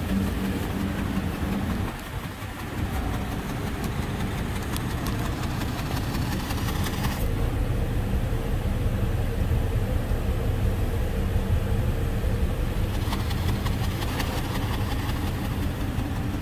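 2011 BMW X3's 3.0-litre straight-six engine idling steadily, heard at the twin tailpipes.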